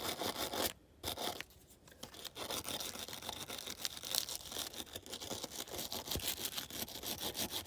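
Rapid, rhythmic scrubbing strokes, several a second, working paint-stripper-softened paint off a die-cast metal model body, with a short pause about a second in.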